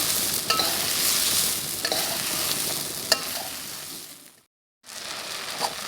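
Shrimp frying in a butter and salted egg yolk sauce, sizzling steadily while being stirred, with a few sharp clicks of the utensil against the pan. The sizzle gets quieter after about two seconds, cuts out completely for a moment near the end, then comes back quieter.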